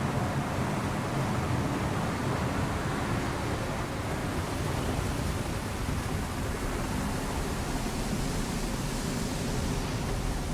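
Car being washed: a steady rushing spray of water over the bodywork, continuous and even.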